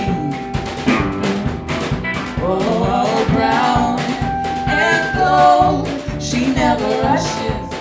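A band playing live: electric guitar, piano and drums, with a voice singing over it from about two and a half seconds in.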